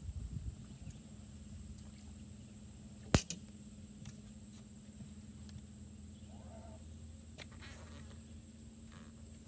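A baitcasting fishing reel clicks once sharply about three seconds in, with a softer click right after, as the rod is readied and cast. A steady low hum runs underneath.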